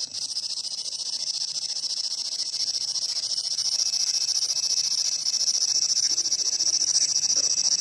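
P-SB11 spirit box (dual sweep frequency radio scanner) sweeping through radio channels, giving out a steady high static hiss with a fast flutter and no clear voice in it.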